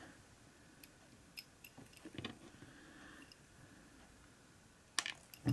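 Faint scattered clicks and ticks of a small screw being turned into a plastic model part with a precision screwdriver, as the small parts are handled. A louder pair of clicks comes near the end.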